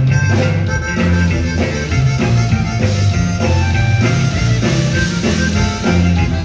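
Live conjunto band playing: button accordion, guitar and drums over a steady bass line.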